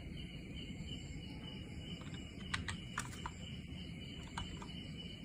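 A few sharp, short clicks, bunched around the middle with two more near the end, over a steady background hiss: computer input clicks as the BIOS settings are saved and exited.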